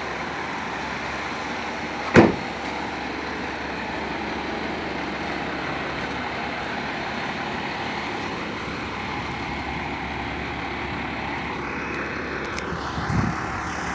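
Steady rumble of a fire engine idling, with a single sharp thud about two seconds in.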